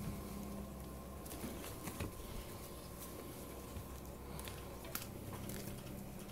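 A ferret's claws pattering and clicking on a hardwood floor as it scrambles after a towel dragged across the boards, in scattered light taps.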